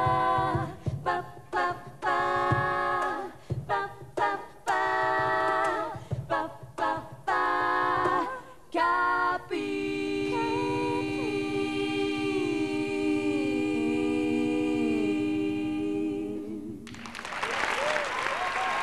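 Women's a cappella group singing short, rhythmic chords in close harmony, then a long held final chord with some voices sliding downward, ending about 17 seconds in. Audience applause breaks out right after.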